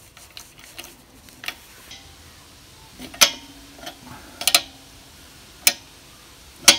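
Steel open-ended spanner clinking against a newly fitted air-line coupler and the compressor's outlet manifold as it is set on to tighten the fitting. There are a few faint ticks, then from about three seconds in four sharp metallic clicks, one of them doubled.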